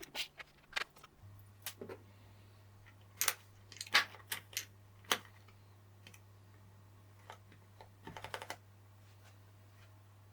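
Scattered keystrokes on a mechanical keyboard fitted with Akko Haze Pink silent linear switches: soft, damped clicks at irregular intervals, with a quick run of several presses about eight seconds in.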